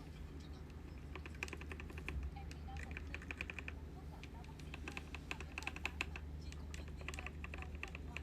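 Typing on a ZIYOU K3 mechanical keyboard with red (linear) switches: quick runs of keystrokes in bursts of several clicks with short pauses between them, over a low steady hum.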